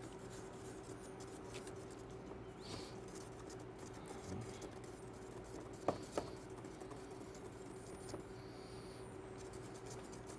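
Pan sauce faintly simmering in a stainless sauté pan under a steady low hum, with two light clinks of a metal spoon against the pan about six seconds in.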